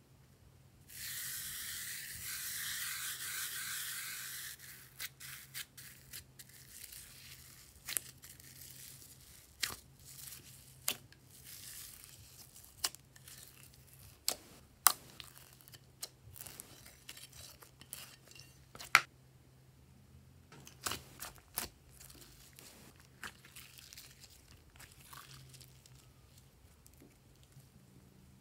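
Fine glitter pouring off a dish onto slime in a dense hiss lasting about three and a half seconds, starting about a second in. Then glossy slime being squeezed and kneaded by hand, giving scattered sharp clicks and pops.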